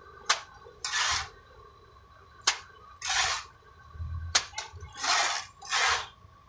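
Steel plastering trowel working cement render on a hawk: three sharp metal clicks and four short, rasping scrapes as the render is scooped and spread.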